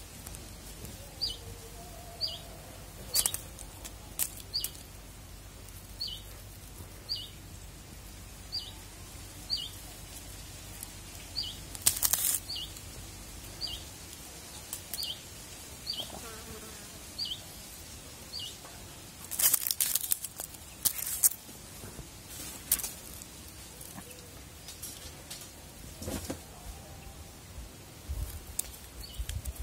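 A dry leaf crackling and rustling in short bursts as it is dangled and batted at, loudest in a cluster about twenty seconds in. Underneath, a faint high chirp repeats about once a second through the first half.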